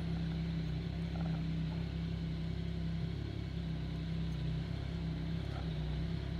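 Yamaha MT-09's inline-three engine idling steadily while the motorcycle stands at a standstill.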